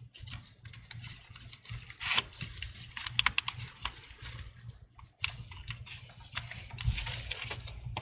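Scattered light clicks and plastic rustling from hands working on an opened HP 14 laptop, with a few sharper clicks about two seconds in and again around three seconds in, as its battery is reconnected.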